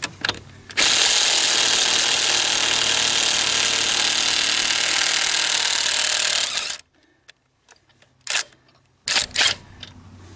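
Ryobi P261 18-volt half-inch cordless impact wrench hammering for about six seconds as it breaks loose a lug nut torqued to 100 foot-pounds, then stopping. A few short knocks follow near the end.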